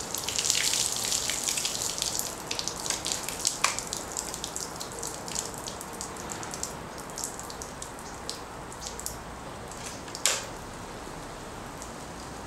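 Water leaking from a pellet-holed, water-filled aluminium can, splattering and dripping onto a wooden picnic table and the ground. It is a dense patter at first that thins over a few seconds to scattered drips. A single sharp click comes about ten seconds in.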